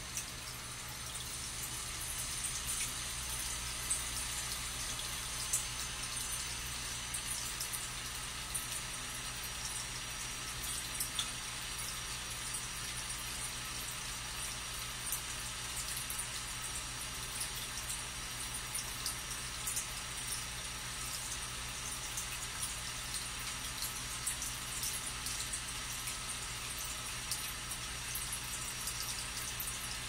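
Water trickling and bubbling steadily in a Tetra Waterfall Globe aquarium, with many small bubble pops and ticks, over a low steady hum.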